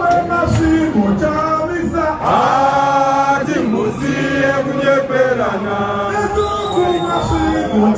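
A large crowd singing a chant-like song together, many voices holding long notes in phrases that break every second or two.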